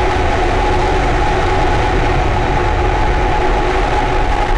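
SpaceX Starhopper's single Raptor rocket engine firing steadily as the vehicle hovers and descends to land: a loud, continuous rumble with a steady tone running through it.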